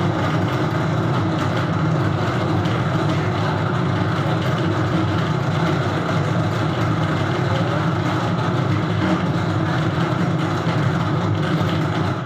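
A loud, steady mechanical drone of a machine running, even and unbroken throughout.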